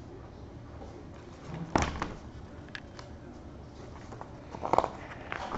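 A picture book being handled and set down on a desk: a sharp knock about two seconds in, then a second, shorter cluster of knocks and rustling near the end, over low room noise.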